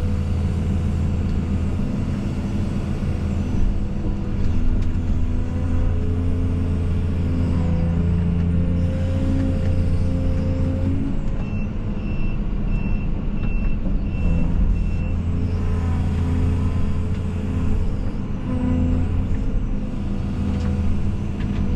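Case CX220E excavator's diesel engine running steadily as the machine works, its low drone easing off and picking back up. A short run of faint, evenly spaced beeps comes about twelve seconds in.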